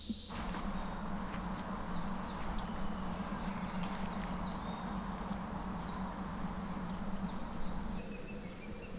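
Outdoor morning ambience: scattered short, falling bird chirps over a steady low background rush.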